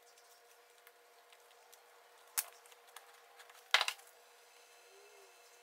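Small hand-working sounds at a marquetry bench: scattered faint clicks, one sharp click about two and a half seconds in, and a short louder clatter a little before four seconds in, from handling sawn veneer pieces and cutting tools.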